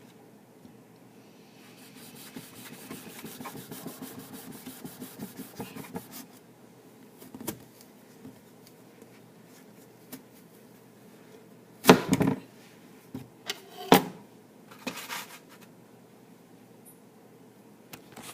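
Knife chopping on a wooden cutting board: a quick, even run of cuts a few seconds long, then scattered clicks and two loud knocks about a second and a half apart.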